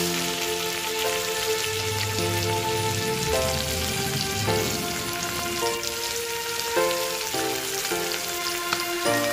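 Hilsa fish head frying in mustard oil in a wok, a steady crackling sizzle, under background music: a slow melody of held notes.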